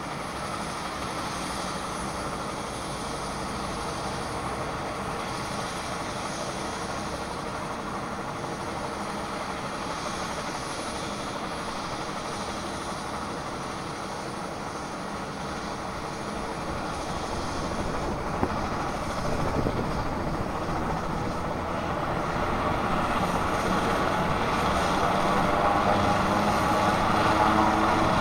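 Sikorsky S-76 air-ambulance helicopter running on the ground, its turbine engines and turning rotor making a steady hum. From about two-thirds of the way through it grows steadily louder as power comes up for take-off, with one short click along the way.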